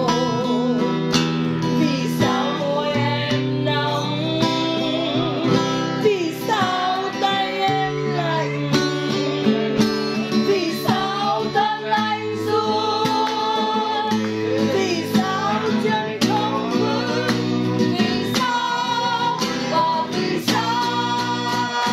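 A woman singing a slow ballad with wavering, drawn-out notes while strumming chords on an acoustic guitar.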